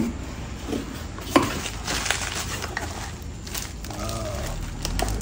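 A few scattered knocks and clicks of things being handled, the sharpest right at the start and about a second and a half in, over a low steady rumble.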